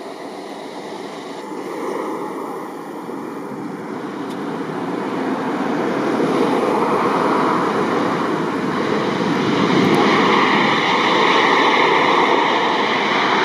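Jet engine noise from a Boeing 737 airliner landing and rolling out on the runway: a steady rushing noise that swells louder over the second half.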